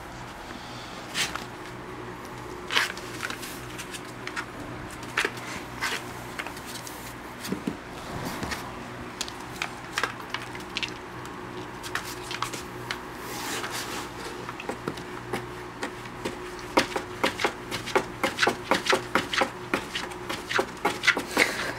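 A dachshund's and a cat's paws and claws scratching and tapping on a cardboard box and a wooden floor: scattered sharp clicks and rubs, coming quickly one after another near the end, over a faint steady hum.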